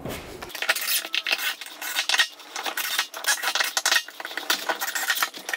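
Cordless DeWalt drill/driver driving wood screws down into a plywood subfloor patch: an irregular run of quick clicks and metallic clatter.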